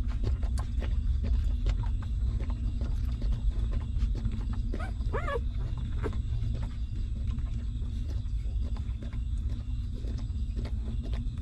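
Newborn puppies suckling at the mother dog's teats: quick wet smacking and clicking throughout, with one short puppy whimper about five seconds in, over a steady low rumble.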